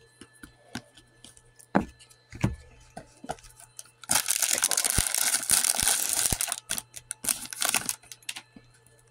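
A few light clicks and taps of trading cards being handled, then the foil wrapper of a Donruss Optic hanger pack crinkling and tearing open for about three seconds from around four seconds in, with a short second crinkle near the end.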